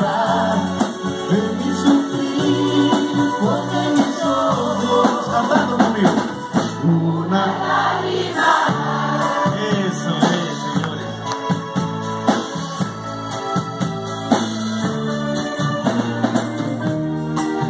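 Live band music with singing over it, played at a steady loud level.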